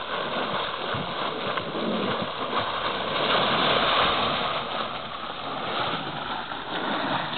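Steady rushing and splashing of liquid: condensate spewing from a leaking oil pipeline and running across the ground.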